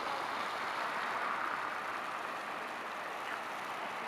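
Steady hiss of distant city road traffic, even in level throughout.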